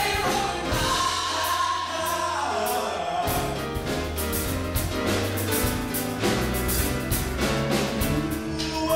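A live band of grand piano, bass guitar and drum kit plays up-tempo while a male lead singer and three backing vocalists sing together, with regular drum strokes over the bass.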